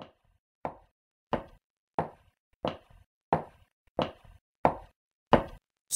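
Footstep sound effect: nine even steps at a steady walking pace, about three every two seconds, each a short knock.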